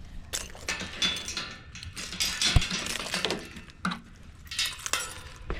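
Irregular scraping and rustling with light metallic clinks as a tool is worked into a pile of wood shavings, with a single dull thump about two and a half seconds in.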